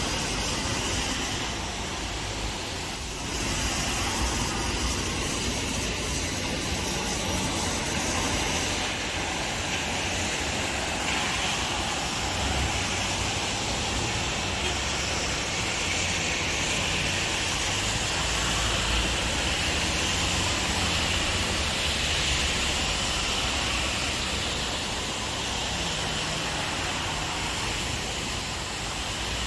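Steady rain and wind: an even hiss with a low, unsteady rumble underneath.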